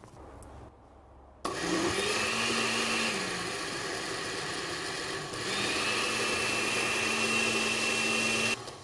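Countertop blender motor switched on about one and a half seconds in, running under load as it blends a thick batter of soaked raw rice, coconut milk, eggs, oil, sugar, cheese and grated coconut. Its pitch sags a few seconds in and it runs louder again past the middle, then it stops abruptly near the end.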